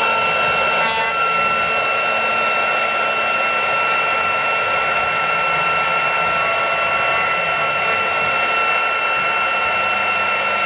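CNC router spindle running at a steady high-pitched whine while its bit carves a wooden cylinder turning on the router's rotary axis, over a constant hiss of cutting.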